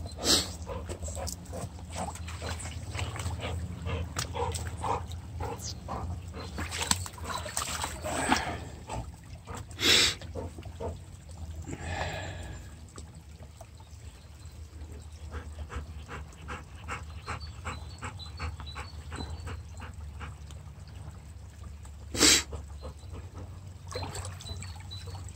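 A Labrador wading and splashing in a shallow brook over a steady trickle of running water. Three sharp, loud splashes or knocks are spread through.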